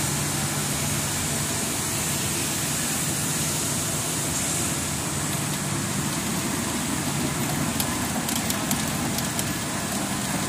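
Rubber profile extrusion and vulcanization line running: a steady machine hum under a high hiss, with a few light ticks about eight seconds in.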